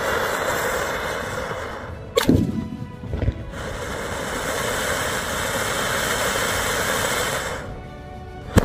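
Two anar bomb fountain firecrackers spraying with a loud steady hiss, broken by a sharp bang about two seconds in; the hissing picks up again, dies away near the end, and a second sharp bang follows.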